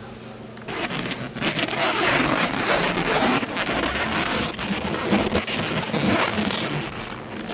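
Inflatable costume's nylon fabric rustling and crinkling loudly as the wearer moves and flails, starting suddenly just under a second in and carrying on as a dense crackle.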